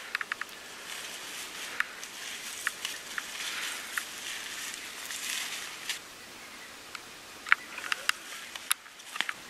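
Footsteps rustling and crunching through dry fallen leaves, with scattered sharp crackles, a cluster of louder ones near the end.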